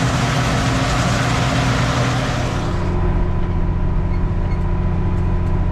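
Diesel farm-machinery engine running steadily, with a loud rushing hiss over it that stops suddenly about halfway through, leaving the engine drone on its own.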